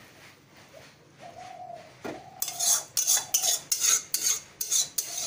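A metal spatula scraping the last of the curry out of a kadai into a serving bowl: a knock about two seconds in, then a quick run of scrapes, about three a second.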